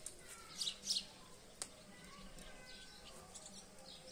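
Small birds chirping: a quick cluster of high chirps about a second in and fainter ones near the end, with a single sharp click in between.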